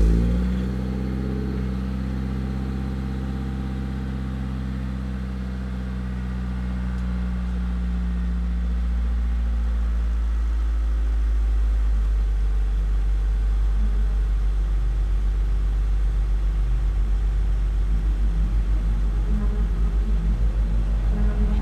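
1995 Honda Civic's D16Z6 1.6-litre four-cylinder engine firing up on a cold start through a freshly fitted stock exhaust and muffler, then idling steadily.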